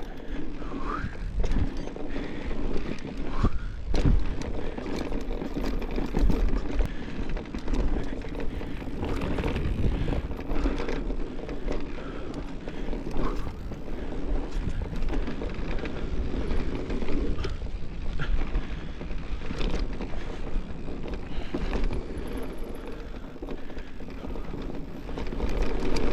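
Mountain bike ridden fast down a rough dirt trail: a continuous rush of tyre noise and low wind rumble on the microphone, broken by frequent knocks and rattles from the bike over the bumps.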